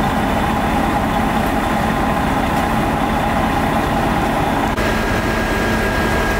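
A heavy engine running steadily with a constant hum. About three-quarters of the way through, a click sounds and the hum's pitch changes.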